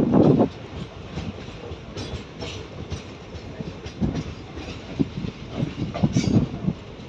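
Passenger train coaches running on the track: steady rumble with irregular clacks and knocks of the wheels over rail joints, heaviest at the start and again about six seconds in.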